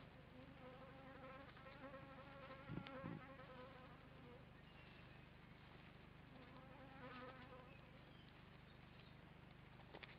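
Kākāpō chick giving faint buzzing begging calls as it is fed. There are two bouts: a long one through the first half, with a couple of soft thumps in the middle, and a shorter one about two-thirds of the way in.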